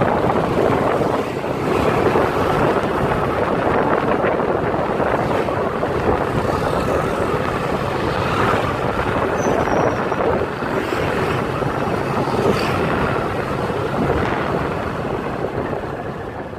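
Steady noise of a moving vehicle with wind buffeting the microphone, fading out near the end.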